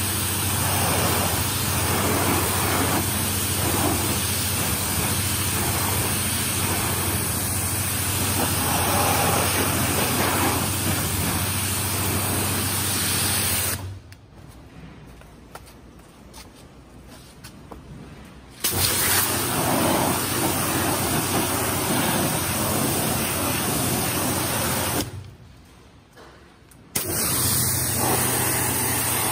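Pressure washer running, its jet spraying water onto a moped's bodywork and frame: a steady hiss over a low hum. It cuts off abruptly twice, for about four seconds from around 14 seconds in and for about two seconds near 25 seconds in, then starts again.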